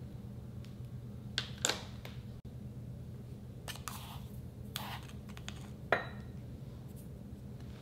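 Handling sounds from slime-making: a few sharp clicks and short scraping swishes as the last clear liquid is squeezed from a cut balloon into a glass bowl, then a plastic spoon scoops instant snow powder from a plastic tub. A faint steady hum underneath.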